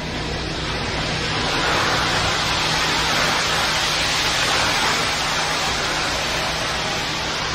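Ready-mix concrete truck running at the open bay door while concrete comes down its chute: a loud, steady rushing noise over a low, even engine hum. It starts abruptly and holds for the whole stretch.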